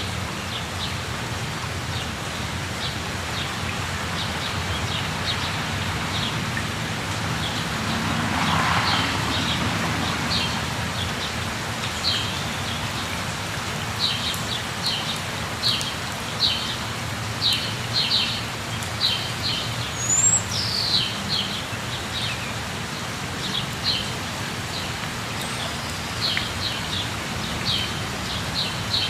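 Steady rush of falling water with birds chirping over it; the short, high chirps come thick and loud through the middle, and the water noise swells briefly about eight seconds in.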